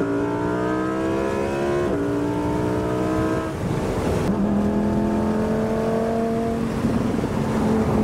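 Lamborghini Huracán Performante Spyder's 5.2-litre V10 accelerating through the gears: the revs climb, drop with an upshift about two seconds in, climb again, then ease off and settle to a steady cruise from about four seconds in.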